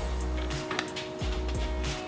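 Background music with sustained tones and deep bass notes recurring about every second.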